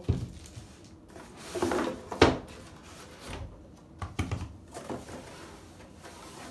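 Handling noises from unpacking a cardboard tool box: a thump at the start, a short rustle about a second and a half in, then a sharp knock, the loudest sound, and a few lighter knocks a couple of seconds later as parts are taken out and set down.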